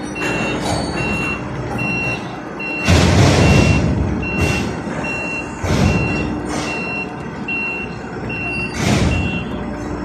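Warning beeper sounding a steady, single high-pitched beep about every 0.6 seconds, stopping near the end. Loud rushing bursts of noise come and go about three, six and nine seconds in.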